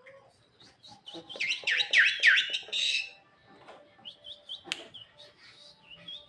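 Pet jalak (starling) calling: a loud run of quick sweeping whistles ending in a harsh note, then scattered short high whistles and chirps.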